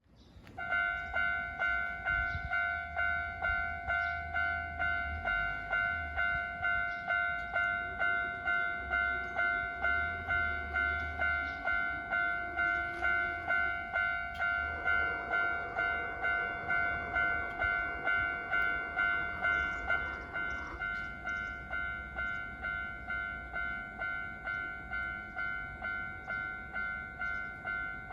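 Japanese railway level-crossing warning bell: an electronic bell ringing about twice a second, starting just after the start and stopping near the end. A train's running noise rises under it in the middle.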